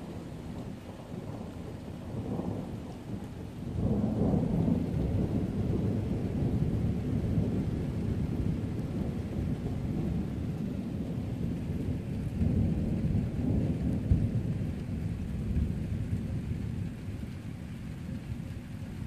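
A long roll of thunder that swells about four seconds in and rumbles on, easing near the end, with rain falling steadily underneath.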